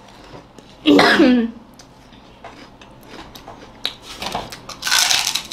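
A girl's short vocal exclamation about a second in, then a forceful hissing breath out through the mouth near the end: a reaction to a burning-hot, chilli-spiced mouthful.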